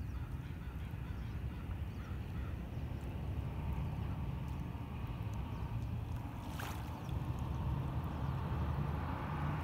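A car engine running with a steady low rumble, which grows a little louder after about seven seconds. A short sharp click comes about six and a half seconds in.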